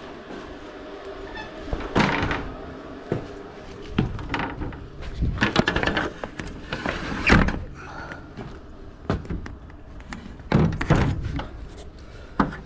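Scattered knocks and clunks of a fibreglass stepladder with aluminium steps being picked up and carried, the loudest about seven seconds in.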